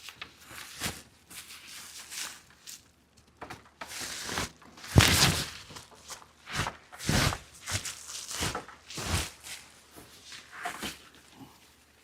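Packing material being handled and pulled off a boxed grille: a series of irregular rustles and scrapes, the loudest about five seconds in.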